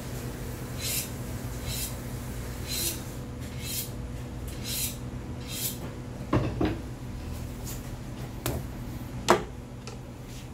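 Short scraping strokes about once a second, then a few sharp knocks of knives being handled on a plastic cutting board, the loudest near the end as a knife is set down. A steady low hum runs underneath.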